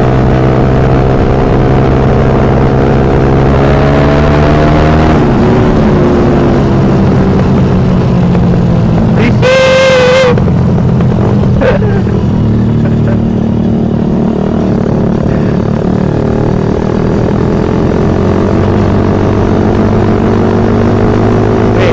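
Suzuki Satria FU motorcycle's 150 cc single-cylinder engine running under way, its pitch climbing and then dropping at a gear change about five seconds in. A short horn beep sounds once, about ten seconds in.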